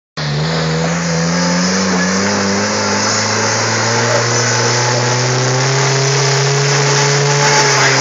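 Jeep Wrangler YJ's engine running steadily at low revs while it crawls over rock on 35-inch tires, its pitch easing down slightly about two seconds in, over a steady hiss.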